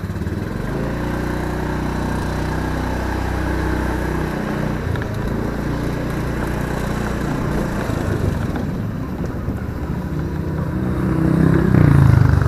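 Honda scooter's single-cylinder engine running at low speed while riding, getting louder as it picks up speed near the end.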